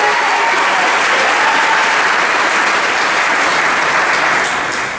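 Audience clapping for an award recipient whose name has just been called: steady applause that starts to die away near the end.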